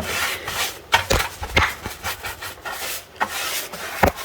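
Paintbrush scrubbing antiquing gel into a painted wood furniture surface: irregular rubbing strokes with a few brief knocks of the brush against the wood.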